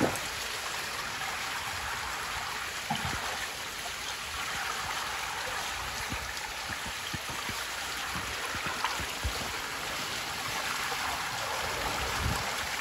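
Creek water flowing and trickling steadily at a beaver dam, with a few soft knocks scattered through.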